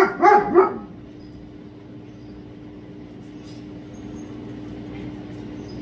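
A Doberman barking three times in quick succession, then a steady low hum in the background.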